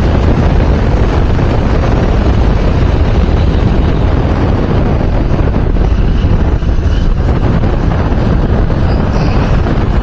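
Wind buffeting the microphone of a camera on a moving motorcycle: a steady, loud rush.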